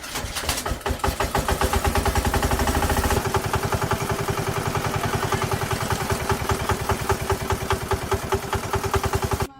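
A freshly restored engine catching and running at a steady idle with evenly spaced firing pulses. It stops abruptly near the end.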